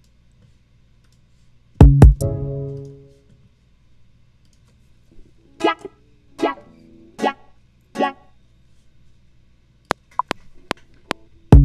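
Electric guitar played through a wah effect: a strummed chord about two seconds in that rings out, then four short, evenly spaced chord stabs. A few light clicks follow, and fuller rhythmic music starts right at the end.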